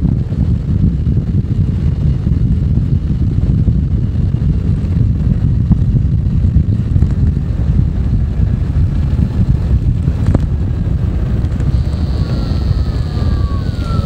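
Wind buffeting a handlebar-mounted microphone on a moving Zero FX electric motorcycle, with the faint whine of its electric drive above the rumble. Near the end the whine falls in pitch.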